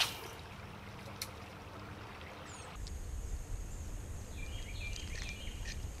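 Riverbank ambience: a steady wash of flowing river water, with a songbird singing a short phrase of repeated chirps near the end. There is a click at the very start, and a low rumble comes in about three seconds in.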